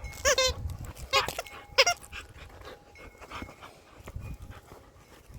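A dog giving three short whining yelps in the first two seconds while playing, followed by quieter scuffling and breathing.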